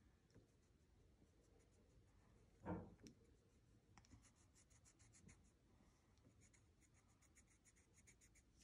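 Faint, quick scratching of a Faber-Castell Polychromos colored pencil shading back and forth on paper, the strokes coming thick and fast in the second half. A single soft thump about a third of the way in.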